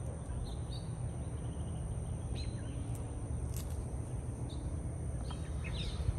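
Outdoor garden ambience: a steady low rumble with a few short, faint bird chirps scattered through it.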